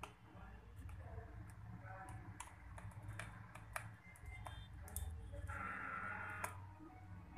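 Small, scattered clicks and taps of a screwdriver and fingers on a laptop's screws, plastic casing and internal parts as it is being taken apart, over a faint steady low hum.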